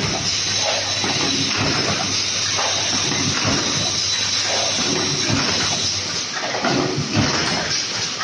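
Automatic tin-box production machine running: a steady mechanical noise with irregular clattering and a low hum underneath.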